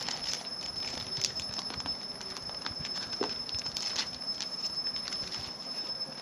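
Irregular light clicks and taps from handling a computer motherboard and its box, over a steady faint high-pitched whine.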